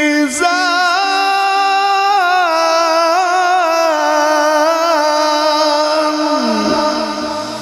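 Male qari's melodic Quran recitation (tilawat): one long, high note drawn out on a single vowel, its pitch wavering in ornaments, amplified through a microphone and PA. Near the end the voice drops in pitch and trails off in echo.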